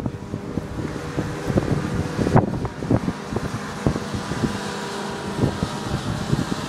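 Storm wind buffeting the microphone in irregular low thumps over a steady rush, with a faint steady hum underneath.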